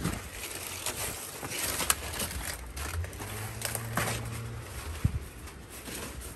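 Machete chopping at banana plant leaves and stalks: a few sharp cuts, with the leaves rustling as they are pulled and handled in between.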